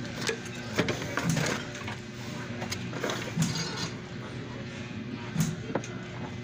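Scattered clicks and light knocks as hands handle a CRT TV's circuit board and set a small replacement vertical IC against its heatsink. A steady low hum runs underneath.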